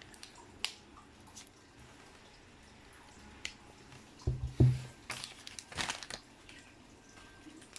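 Packaging being handled during unboxing: a few scattered clicks, two dull thumps about four and a half seconds in, then a short spell of crinkling and rustling.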